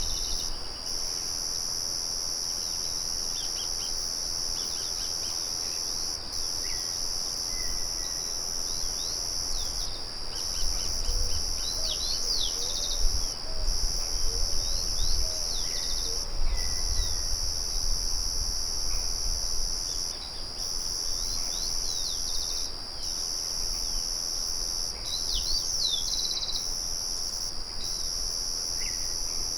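Crickets trilling in a continuous high chorus that breaks off briefly now and then, with scattered short bird chirps and a low rumble underneath.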